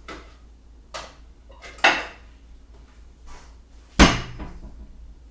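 Bowls and a kitchen cupboard being handled: a few sharp knocks and clatters of dishes, the loudest a heavy thud about four seconds in.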